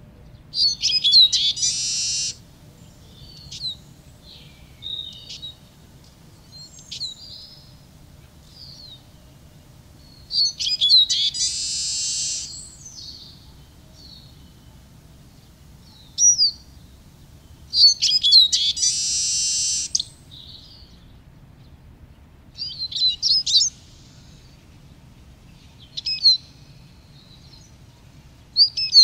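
Eurasian siskin singing: fast, high twittering phrases, three of them ending in a drawn-out buzzy note, with short chirps and brief twitters in between.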